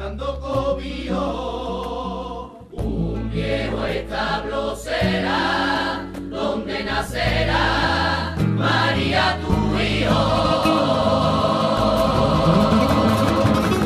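Background music: a choir singing over instrumental accompaniment with a sustained bass.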